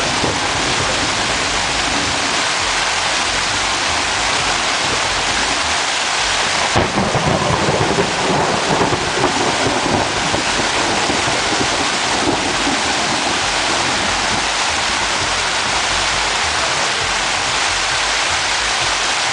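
Heavy rain pounding on a tent, a dense steady roar of drops on the fabric. About seven seconds in it swells louder and deeper for a few seconds.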